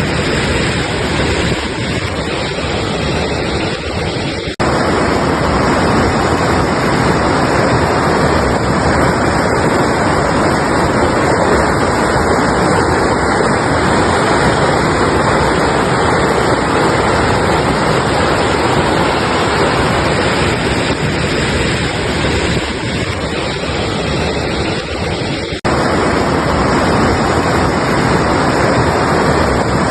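Altai mountain river rushing, a loud, steady, even wash of running water. The sound drops out for an instant twice, about four and a half seconds in and again near the end.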